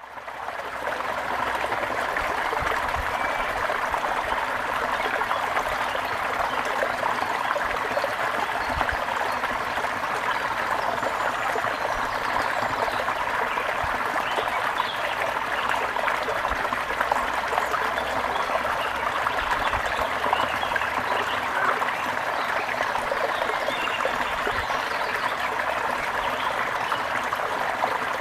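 Gentle river flowing steadily, an even rush of water that fades in over the first second.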